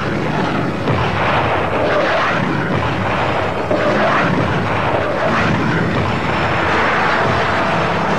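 Military jet aircraft flying over, with a heavy rumble and a few blasts mixed in.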